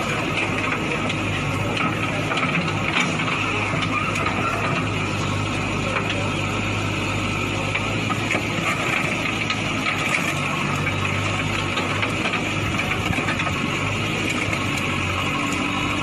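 JCB backhoe loader's diesel engine running steadily under load as its bucket and arm smash into an SUV's body, with a few scattered clanks of metal.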